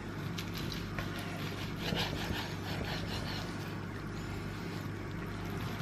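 Chef's knife sawing through cooked rump steak and tapping down onto a wooden chopping board: a run of short scrapes and taps, busiest about two seconds in. A steady low hum runs underneath.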